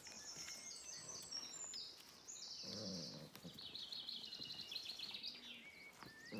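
Small songbirds singing: repeated fast, high trills that step down in pitch. About three seconds in there is a brief low growl from the dogs play-fighting.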